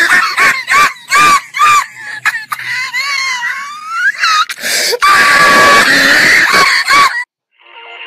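Girls screaming and shrieking: a run of short high shrieks, then a wavering wail, then one long loud scream that cuts off suddenly about seven seconds in. Intro music starts just after.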